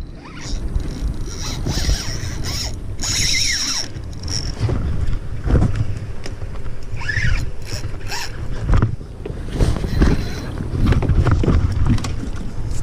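Wind buffeting the microphone on a small open boat, a steady low rumble, with scattered mechanical clicks and knocks and a brief higher whistling sound about three seconds in.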